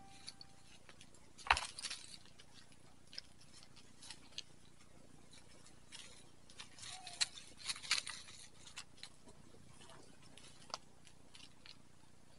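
Goats moving about on the ground: scattered light taps and scuffs, with a sharper knock about one and a half seconds in and a cluster of clicks around eight seconds in.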